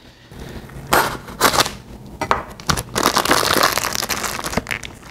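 Plastic sausage wrapper crinkling and tearing as it is pulled open by hand, densest in the second half, with a few sharp knocks about a second in.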